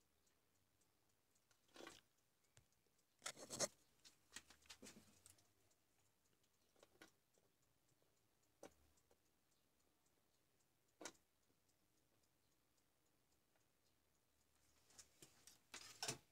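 Near silence broken by scattered short clicks and taps of hands handling a small charger circuit board, a solder reel and a soldering iron on a workbench, the loudest about three and a half seconds in and near the end.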